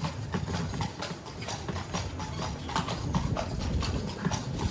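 Carriage horses' hooves clip-clopping on cobblestones at a walk, a quick run of sharp strikes over the low rumble of the carriage rolling along.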